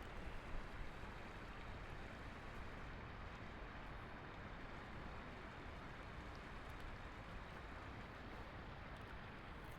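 Steady, fairly faint rush of fast-flowing floodwater in a swollen river.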